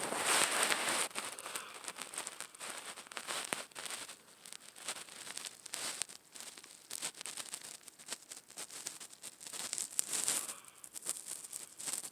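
Loud snoring: raspy, crackly breaths that swell and fade irregularly, loudest right at the start.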